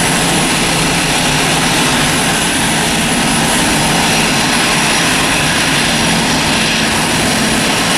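Boeing 767 freighter's jet engines running: a loud, steady roar with a thin high whine over it.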